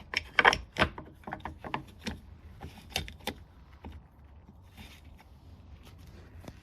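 Quick clicks and light knocks of the air filter and its cover being fitted back onto a McCulloch 10-10 chainsaw, dense at first and thinning out after about three and a half seconds.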